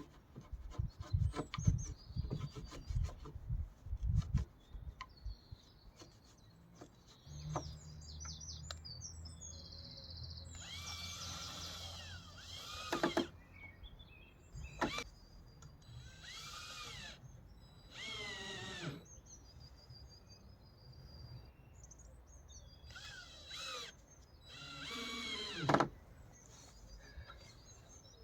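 A series of sharp knocks on wood, then a power drill running in several short bursts whose pitch rises and falls as the trigger is worked, with birds chirping.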